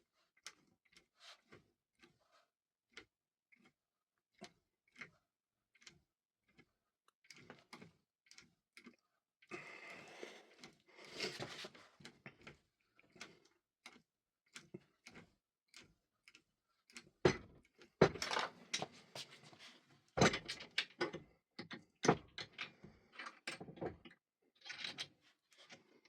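Lock-opening tool being rocked and worked inside a Vachette Radial lock cylinder: a run of small sharp metallic clicks, with a stretch of scraping about ten seconds in and louder clicks in the second half.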